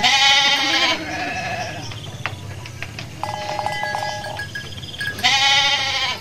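Sheep bleating: two loud, wavering bleats about a second long, one at the start and one near the end, with fainter bleats from the flock in between.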